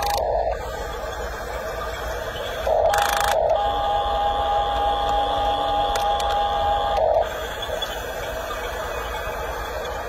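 Electric track motors and gearboxes of a Huina RC toy bulldozer whining as it drives. A steady flat-pitched whine with gear noise stops half a second in, starts again about three seconds in with a short rougher burst, and runs for about four seconds before cutting off.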